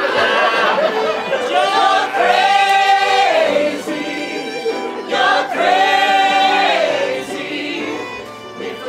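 A stage cast singing together in chorus over musical accompaniment, holding two long notes with vibrato.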